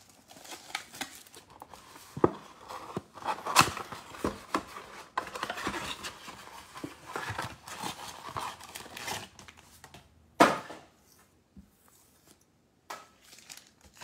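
Hands tearing open a cardboard trading-card blaster box and pulling out its foil packs: cardboard tearing and rustling with crinkling and scattered clicks, and one sharp snap about ten and a half seconds in.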